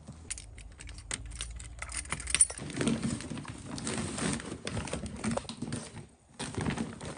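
Quick light jingling and clicks for the first couple of seconds, then rustling of soft blankets and a crinkly woven plastic bag as they are stuffed in by hand.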